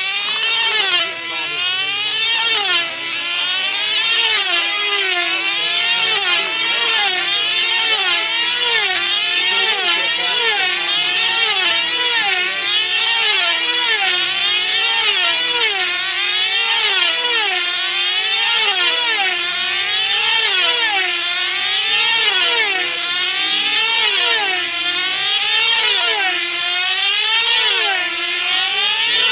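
Control-line team-racing model aircraft engines running flat out, a high whine that rises and falls in pitch in a regular wave as the models circle the pilots lap after lap.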